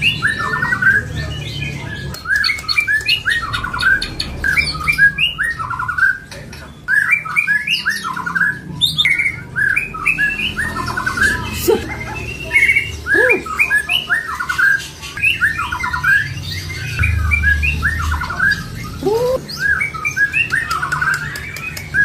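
Many caged songbirds calling at once: a dense, unbroken chatter of quick runs of short chirps, with a few lower rising whistles now and then and a low hum underneath.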